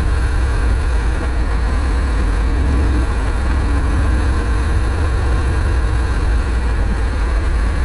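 Harley-Davidson Low Rider's V-twin engine running steadily at cruising speed, a deep low rumble under a steady rush of wind and road noise.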